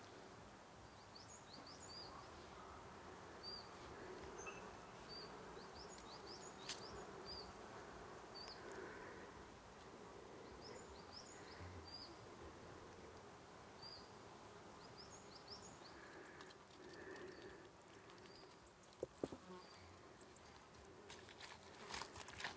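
Faint buzzing of flying insects, swelling and fading, with scattered short high bird chirps and a few soft clicks.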